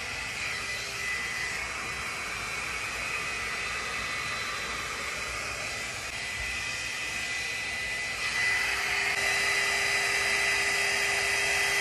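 GHD Duet Style hot air styler's fan running: a steady rush of air with a high whine, growing louder about eight seconds in.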